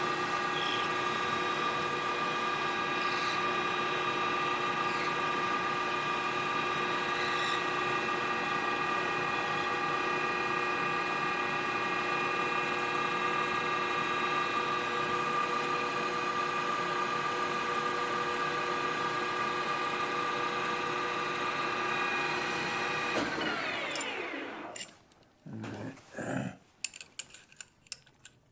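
Metal lathe motor and spindle running with a steady whine, switched off about 23 seconds in and winding down with a falling pitch. Then come a few clicks and knocks of handling metal parts.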